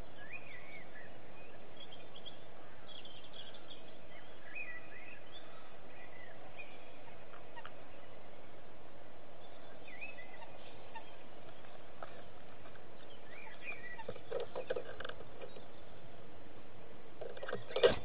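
Barn owl shuffling on the nest material, then a short loud flurry near the end as it leaves the nest box, over faint chirping calls of small birds and steady hiss.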